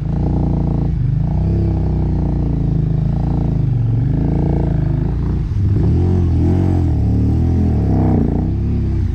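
Motorcycle engine revving, its pitch rising and falling again and again, with quicker up-and-down revs from about halfway through.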